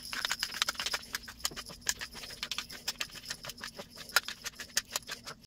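Hand-twisted pepper mill grinding black pepper: a quick, uneven run of clicks from the grinding mechanism.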